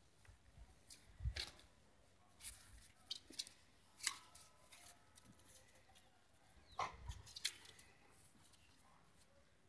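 Faint, scattered scuffs and clicks from an adult dog and a puppy play-wrestling on concrete, with a handful of louder scrapes about a second in, around four seconds in and near seven seconds.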